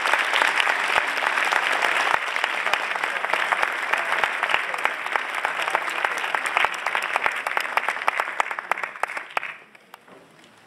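Audience applauding, dense clapping that dies away about nine and a half seconds in.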